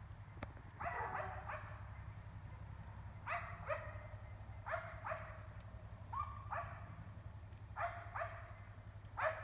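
Dogs barking about 400 feet away, a single or quick double bark roughly every one and a half seconds, over a steady low hum.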